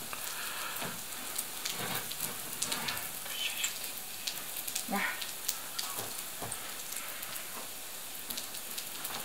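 Semolina pancakes frying in oil in a cast-iron pan: a steady sizzle with scattered small pops and crackles.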